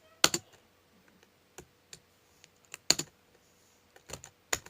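A handful of short, sharp clicks or taps at uneven intervals, like keys being pressed or something hard being tapped.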